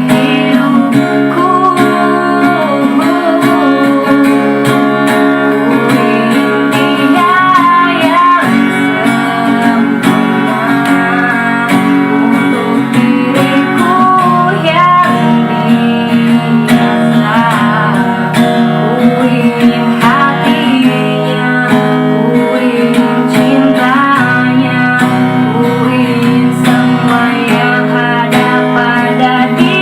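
A voice singing a wavering melody with vibrato over strummed acoustic guitar.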